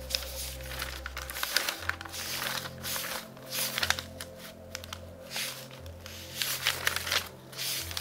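Newspaper pages rustling and crinkling as they are handled and turned, in repeated bursts with sharp crackles, over soft background music.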